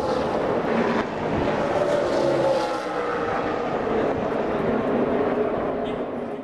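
Pack of NASCAR race trucks' V8 engines running at speed on the oval, heard from a distance as a steady drone whose pitch slowly rises and falls.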